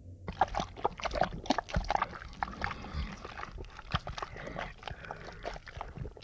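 A 'slime ingestion' creature sound effect from a library: a dense, irregular run of short clicks and smacks.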